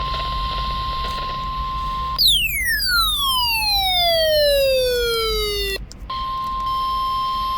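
NOAA Weather Radio warning alarm tone: a steady 1050 Hz beep sent ahead of a severe thunderstorm warning. About two seconds in it gives way to a long falling swoop of tone with overtones, which cuts off sharply. The steady tone comes back about six seconds in.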